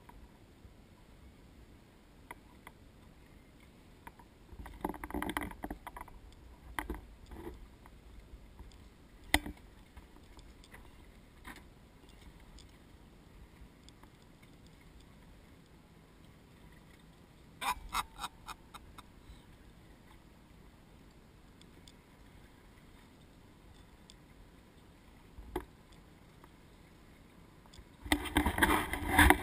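Quiet aboard a fishing boat at sea, broken by scattered sharp knocks and clicks and a few short bursts of noise, the longest about five seconds in and another near the end.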